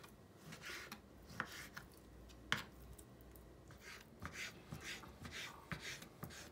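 Knife slicing raw chicken fillet on a wooden cutting board: faint, irregular cutting strokes, with a sharper knock of the blade on the board about two and a half seconds in.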